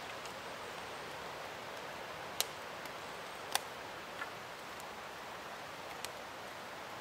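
Wood campfire crackling: three sharp pops spread through a few seconds, the loudest near the middle, over a steady background hiss.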